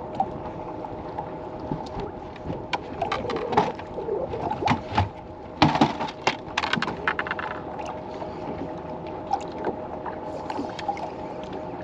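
Steady electric hum of a bass boat's trolling motor, with a run of knocks and clatter on the deck between about three and seven seconds in, the loudest near the middle, as a hooked fish is brought to the boat and netted.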